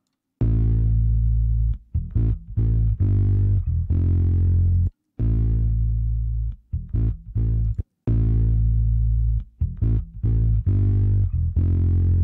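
A bass guitar track plays back alone through a T-RackS Vintage Compressor 670 plugin, a vintage valve-compressor emulation. A short phrase of sustained low notes repeats, starting about half a second in and pausing briefly twice.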